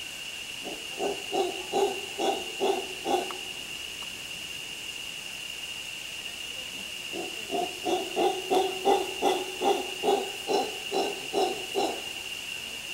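Mantled howler monkey giving two series of deep, rhythmic grunting calls, about two or three a second. The first short series comes early and a longer one of about a dozen calls follows after a pause, over a steady high-pitched drone.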